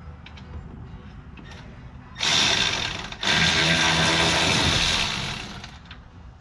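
Power wrench run in two bursts, a short one about two seconds in and a longer one right after, spinning out bolts.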